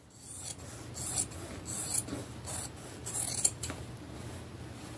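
Fabric scissors cutting through a men's shirt along a seam: a series of short snipping strokes a little under a second apart, easing off near the end.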